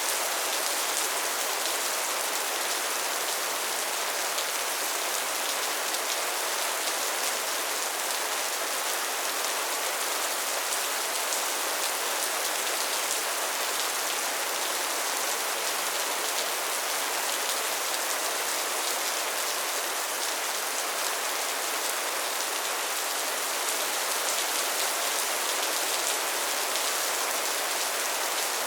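Steady rainfall: an even, hissing wash of countless drops, bright and light, with almost no low rumble and no change in strength.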